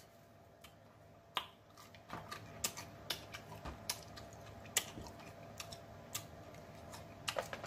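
Close-up eating sounds of snow crab legs: scattered, irregular sharp clicks and smacks from the hands working the crab shell and from the mouth while chewing.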